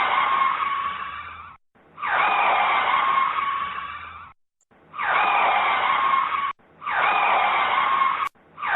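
Car tyres screeching under hard braking, played again and again: four long squeals and the start of a fifth, each with a high steady whine that bends down slightly at its start and cuts off abruptly.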